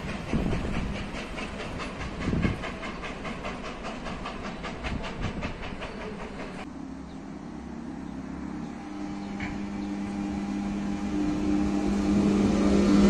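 Railway coaches rolling away over the track, their wheels clicking in a fast, even rhythm over rail joints. Then a ČD class 362 electric locomotive passes close by with a steady hum that grows louder, rising in pitch near the end.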